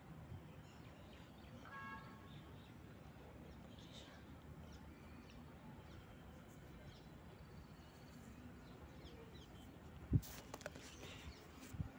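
Faint background hiss with a short chirp about two seconds in, then a sharp click about ten seconds in and a smaller one just before the end.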